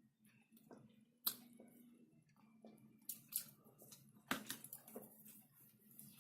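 Faint wet mouth sounds of eating soft KFC whipped potato: scattered smacks and clicks, a sharper one about a second in and small clusters around three and four seconds in.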